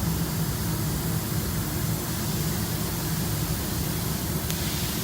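Steady low machine hum with hiss over it, the running background of a body shop, with one faint click near the end.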